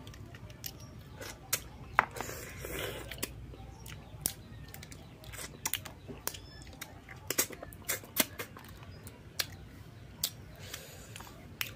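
Cooked crab shell being cracked and picked apart by hand: irregular sharp clicks and crackles throughout, with a small cluster of them in the second half.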